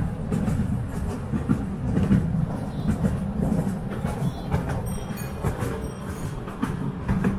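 Miniature railway train running on its track: a steady low rumble with a scatter of small clicks and clatter from the wheels on the rails.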